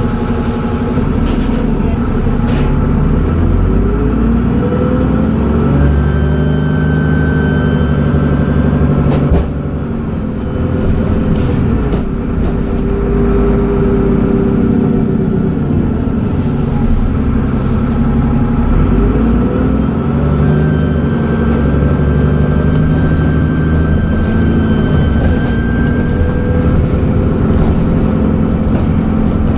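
Dennis Trident double-decker bus engine pulling away twice, its note rising and falling through the Voith automatic gearbox, with a high turbo whistle while it pulls.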